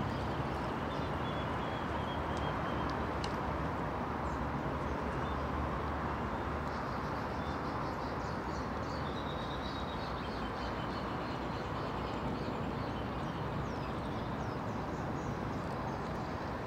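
Steady outdoor noise with the faint, repeating hoofbeats of polo ponies galloping on turf.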